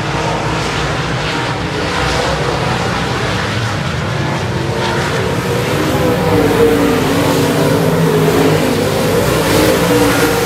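A field of dirt-track modified race cars running at speed around the track, their engines blending into one steady din. The engine note grows stronger and a little louder in the second half as cars come by close to the fence.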